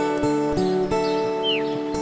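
Calm lofi background music led by plucked acoustic guitar, with a single short falling bird chirp about one and a half seconds in.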